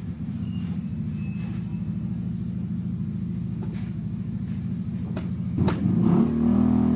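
An engine running steadily at idle, a low, even rumble with a fast pulse, which grows louder about six seconds in. A couple of sharp clicks come shortly before that.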